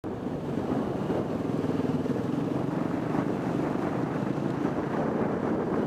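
Motorcycle engine running steadily while riding, heard from the onboard camera, with wind rushing over the microphone.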